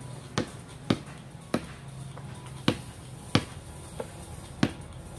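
Basketball dribbled on a concrete slab: about eight sharp bounces at uneven intervals, one of them faint about four seconds in.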